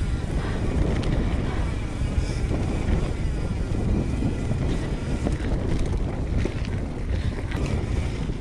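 Wind buffeting an action camera's microphone while a mountain bike rolls along the trail: a steady low rumble with scattered small clicks and rattles from the bike.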